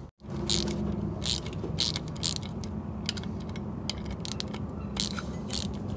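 A rust-seized electric windshield wiper motor being worked by hand: irregular metallic clicks and scrapes as its gear parts are turned and pried, several a second, over a steady low hum.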